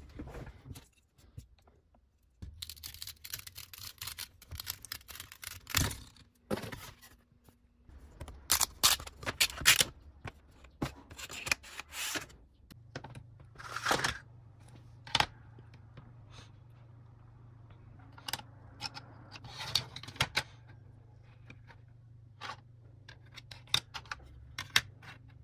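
3D-printed plastic parts being handled and fitted together by hand: a series of sharp plastic clicks, taps and short scrapes in separate bursts with brief gaps between them. A faint steady low hum sits underneath from about halfway through.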